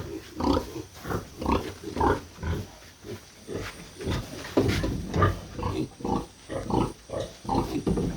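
Domestic pigs in a pen grunting, a string of short grunts coming about two a second.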